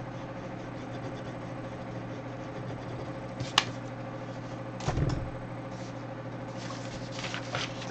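Paper and crayon handling on a desk over a steady low hum: a sharp click about three and a half seconds in, a soft thump about five seconds in, and paper rustling near the end as drawing sheets are moved.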